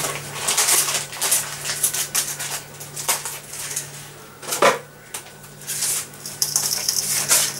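Saucepan of water heating on the hob, ticking and crackling irregularly as small bubbles form on the base before it boils, over a steady low hum. One louder knock comes a little past halfway.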